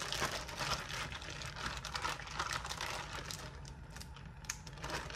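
Plastic zip-top bag crinkling and rustling in the hands as chicken pieces go into it, a steady run of irregular small crackles.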